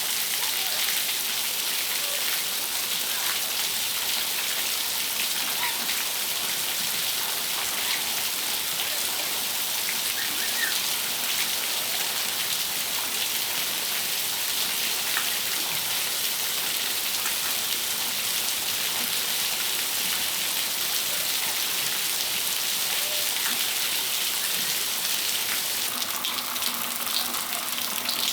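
Steady rain falling on a patio, an even hiss with scattered individual drops ticking.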